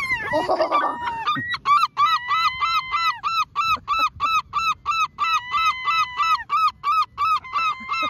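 Herring gulls calling: a long run of repeated nasal calls, about three a second, with a long steady drawn-out call held over them at times. In the first second a short noisy scuffle with flapping wings.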